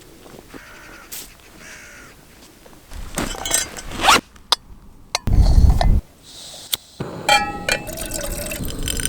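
Crows cawing several times, mixed with louder irregular outdoor sounds and a short low rush about two-thirds of the way in.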